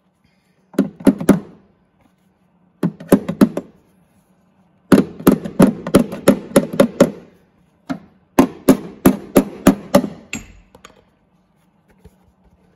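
Hammer striking the welded sheet-steel patch on a Mercedes Sprinter's door step: four bursts of quick blows, the longest near the middle, tapping the patch metal into place.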